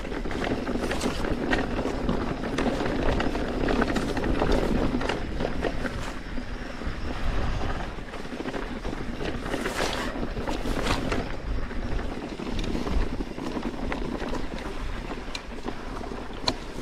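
Mountain bike rolling fast over a rocky trail: tyres running over loose stones, with many sharp knocks and rattles from the bike, and wind rushing on the microphone.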